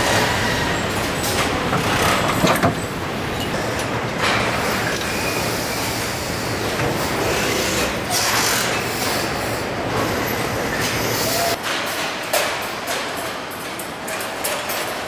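Vehicle assembly plant floor noise: a steady machinery din with scattered clanks and knocks. About two-thirds of the way through, the low rumble drops away, leaving sharper clicks and clatter.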